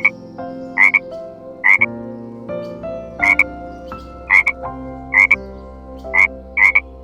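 Frog croaking repeatedly, about eight short croaks roughly a second apart, several of them split into two quick pulses.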